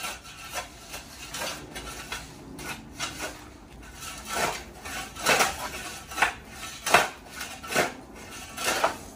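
Steel shovel blade scraping and chopping into dry dirt and weeds in irregular strokes, louder and about once a second from around four seconds in.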